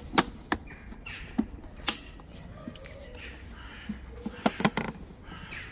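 Scattered sharp clicks and knocks of hard plastic tail-light parts being handled. There are a few in the first two seconds and a quick pair about four and a half seconds in.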